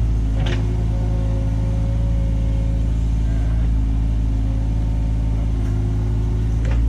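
John Deere 35G mini excavator's diesel engine running steadily.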